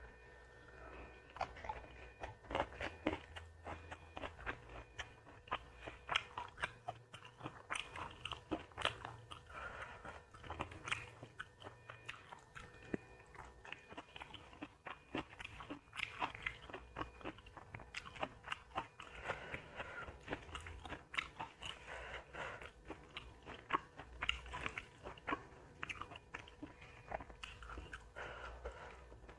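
Close-miked mukbang eating: a person biting and chewing crunchy food, fried catfish with rice and raw vegetables, with many irregular crisp crunches and wet chewing.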